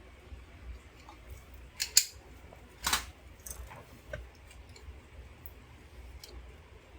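A few sharp metal clicks and scrapes of pliers gripping and slipping on a stuck nut, the loudest about two and three seconds in, with smaller ticks after.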